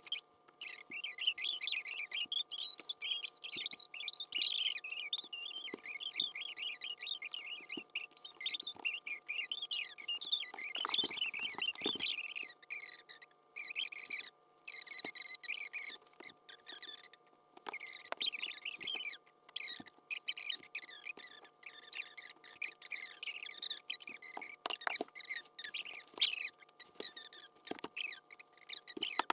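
Bubble wrap crinkling and crackling as it is squeezed and wrapped into a ball by hand, with a louder crack about eleven seconds in. Two faint steady tones run underneath.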